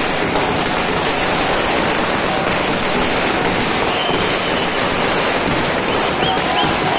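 Firecrackers going off one after another in a dense, continuous crackle that never pauses.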